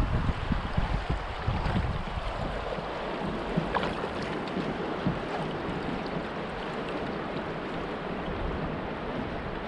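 River water washing along a kayak's hull as it moves, with wind buffeting the microphone, heaviest in the first two seconds and then steadier.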